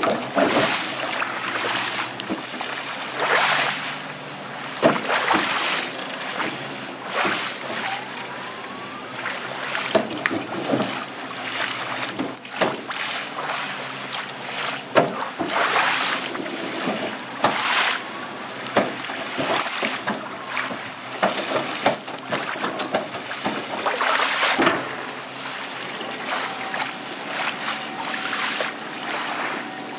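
Small waves lapping and splashing at the shoreline in irregular surges every second or two, over a faint steady hum.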